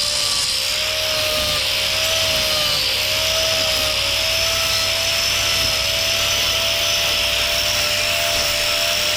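Handheld electric angle grinder with a hoof-trimming disc running steadily as it trims a cow's dew claw. It gives a high whine over a hiss, and its pitch dips slightly a couple of times in the first few seconds.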